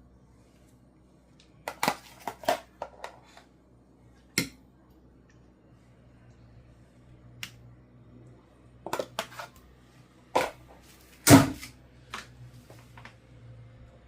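Kitchen utensils and dishes knocking and clicking at irregular intervals, a dozen or so sharp knocks, with the loudest one about eleven seconds in.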